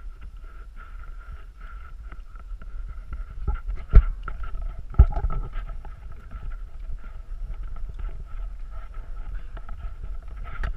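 Wind rumbling on the microphone of a handheld action camera, with a steady faint high hum. About four and five seconds in come two loud knocks as the camera is carried up the aluminium spiral stairs to the top deck.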